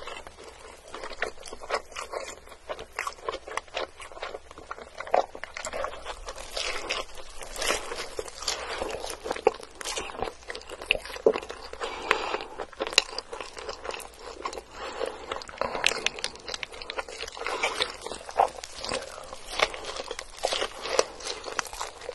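Close-miked ASMR chewing and biting of a tall stacked cheeseburger layered with beef patties and melted cheese: a continuous run of irregular crunchy clicks and mouth sounds.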